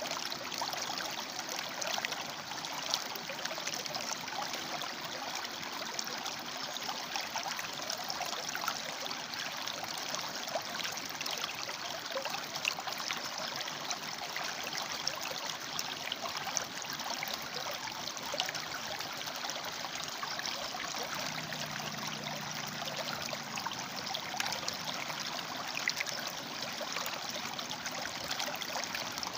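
River water flowing and splashing between rocks, a steady rushing babble.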